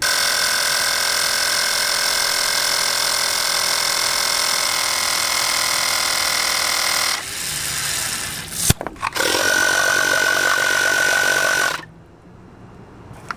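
Small portable electric air compressor running steadily as it pumps air into a water-filled ABS-pipe tank through a Schrader valve, pressurising it to test freshly glued joints for leaks. About seven seconds in the sound drops lower and quieter, a sharp click comes near nine seconds, then the compressor runs again with a high steady whine and stops near twelve seconds.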